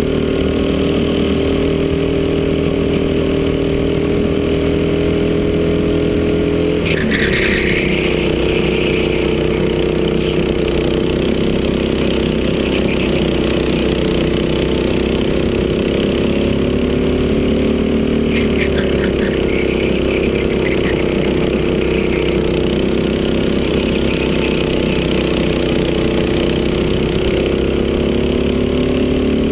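Go-kart engine running flat out on a lap, heard from on board; the engine note drops sharply about seven seconds in and dips once more later before climbing back.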